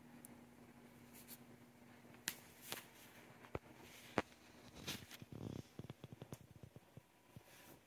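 Faint scattered clicks and rustles from a cat brushing against the phone and stepping about on the floor mat, with a few sharper ticks in the middle and a quick run of small ticks near the end. Under them runs a faint steady hum that stops about five seconds in.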